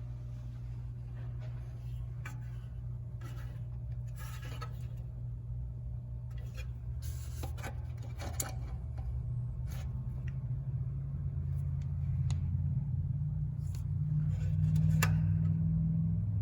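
1985 Toyota Celica Supra's straight-six idling just after a cold start, a steady low hum that rises slightly in speed and loudness near the end. A few light clicks and rustles are scattered over it.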